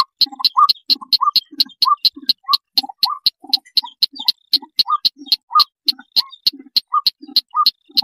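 Recorded call of the red-legged crake (sintar) played as a bird lure: a fast, even series of sharp ticks, about five a second, with short rising notes woven in.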